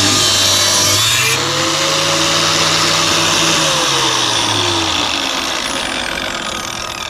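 Power saw with a small cutting disc running and cutting through a workpiece with a loud, steady whine. About five seconds in, the motor is released and spins down, its pitch falling.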